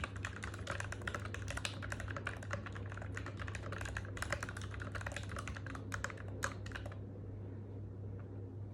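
Steady, fast typing on an NK65 v2 aluminum mechanical keyboard with Krytox-lubed Gateron Ink Black V2 linear switches and Cherry-profile PBT keycaps. The keystrokes stop about seven seconds in.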